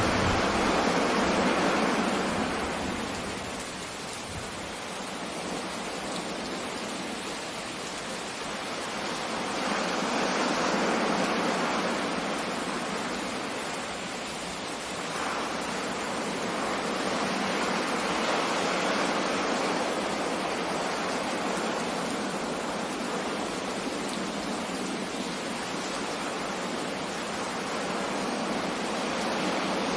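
Steady rushing of rain and sea surf that swells and eases every several seconds. A thunder rumble dies away in the first second.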